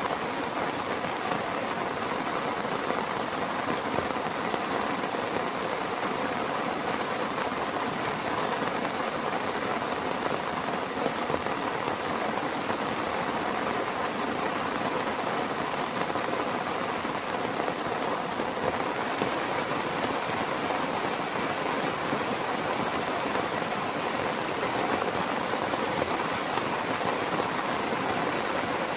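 Heavy rain falling steadily, an unbroken hiss of drops that turns a little brighter about two-thirds of the way in.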